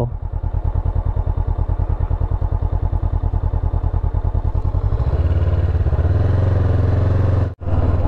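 Honda CB500X parallel-twin engine running at low road speed with an even, rapid exhaust pulse, the revs picking up about five seconds in. The sound drops out for a moment near the end.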